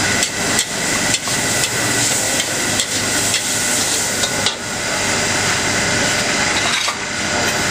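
A metal ladle clanking and scraping irregularly against a wok during fast stir-frying, over a steady hiss of high-heat frying.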